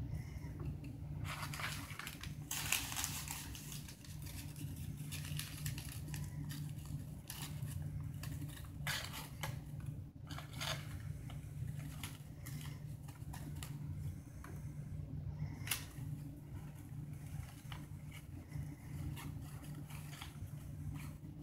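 Paper fast-food wrappers and a paper bag rustling and crinkling as they are handled, in irregular bursts, over a steady low hum.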